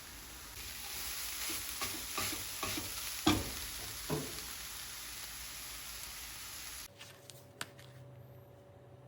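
Food sizzling in hot oil in a pan while a utensil stirs it, with several sharp knocks of the utensil against the pan, the loudest about three seconds in. The sizzling stops suddenly about seven seconds in.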